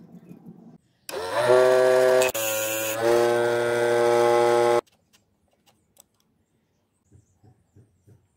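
A small homemade DC-motor grinder with a red abrasive disc spins up with a rising whine about a second in. It runs at a steady pitch for nearly four seconds, its tone dipping briefly near the middle, then cuts off suddenly. A few faint clicks of handling follow.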